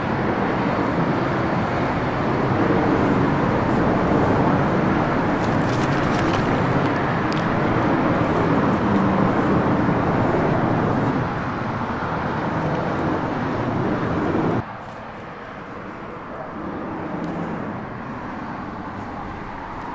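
Steady rushing traffic noise from the highway overhead, dropping suddenly to a quieter level about three-quarters of the way through.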